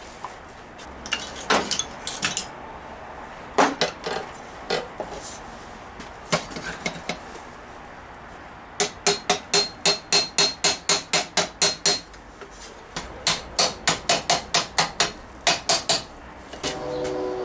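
Hammer blows on metal: scattered single strikes at first, then two quick runs of about a dozen blows each, about four a second, with a slight metallic ring.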